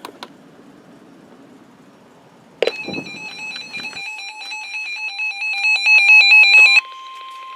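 Faint radio hiss, then about two and a half seconds in a NOAA Weather Radio emergency alert begins: a loud, rapidly pulsing electronic data signal for about four seconds, cut off by a single steady warning tone near 1 kHz (the weather radio's 1050 Hz alert tone) that marks an incoming warning.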